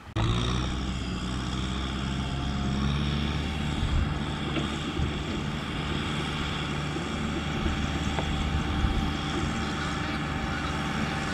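Kubota M6040SU tractor's diesel engine running steadily at a constant pitch while towing a trailer loaded with rice sacks.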